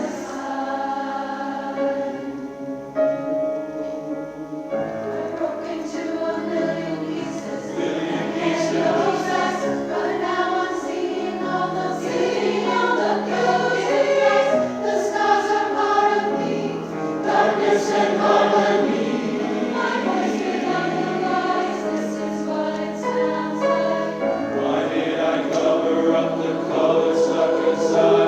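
Community chorus singing a choral arrangement in parts, with sustained, shifting chords.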